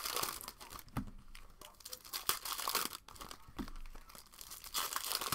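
Foil wrapper of a 2019/20 Hoops basketball card pack being torn open and crinkled by hand, in several bursts of crackling.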